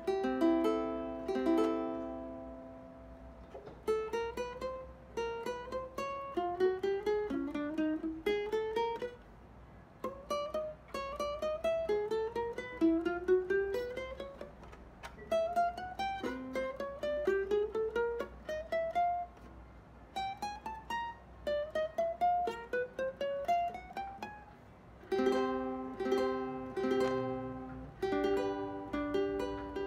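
A BWS tenor ukulele, solid mahogany body and mahogany neck, being played. It opens with a few chords, then plays a long stretch of picked single-note runs, each climbing in pitch, and returns to chords near the end.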